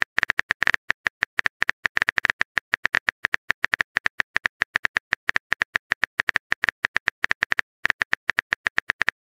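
Simulated phone keyboard typing sound effect: a rapid run of sharp key clicks, about eight a second, with a brief pause about three quarters of the way through.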